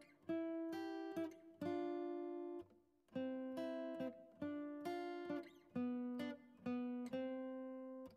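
Background music: an acoustic guitar plucking chords in a steady rhythm, each chord ringing and fading before the next.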